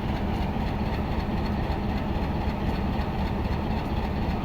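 HBU-20 diesel-electric locomotive idling steadily with a constant low rumble while its train stands at the platform.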